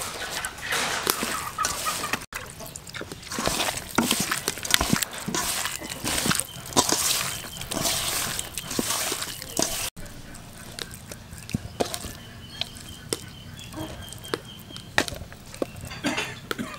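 A hand squishing and kneading minced pork in an aluminium bowl: wet squelching and slapping with small clicks against the metal. After about ten seconds it turns quieter, to light handling as the meat is pressed into pieces of bitter gourd.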